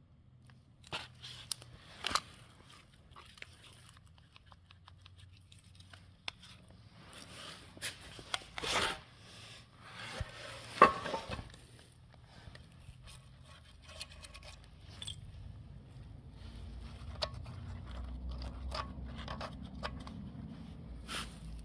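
Hand work on metal gearbox parts: scattered clicks, scrapes and knocks, with one sharp knock about eleven seconds in, then a low rumble building up for the last few seconds.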